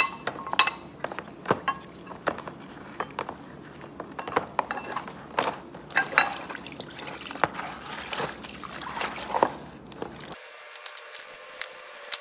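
Rusty steel pedal-cluster parts being scrubbed and swished with brushes in a plastic pan of purple degreaser: liquid sloshing and splashing, with irregular clinks and scrapes of metal on metal and against the pan.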